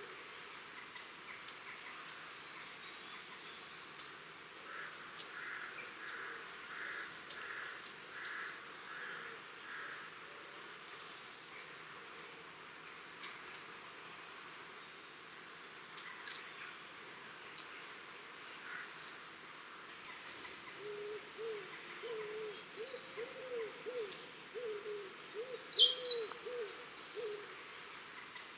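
A flock of long-tailed tits calling: thin, very high-pitched contact calls repeated all through, with the odd louder chirp. A low series of short repeated notes from another source joins in during the second half.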